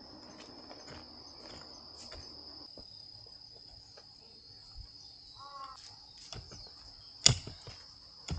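Crickets trilling steadily in a high, even tone, while a hoe chops into soil with scattered soft knocks and one sharp strike about seven seconds in.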